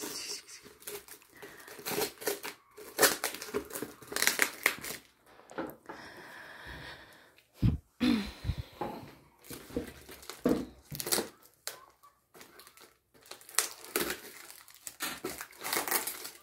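A well-wrapped parcel being torn open by hand: irregular crinkling and ripping of the packaging, with an occasional knock.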